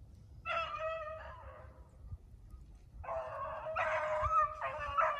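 Beagles baying while trailing a rabbit. One hound gives a couple of long bawls about half a second in, then from about three seconds more voices join in steady, overlapping baying.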